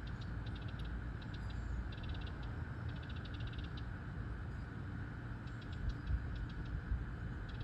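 Songbird singing short, rapid trilled phrases of quick high notes, several phrases in a row with gaps between them, over a steady low background rumble.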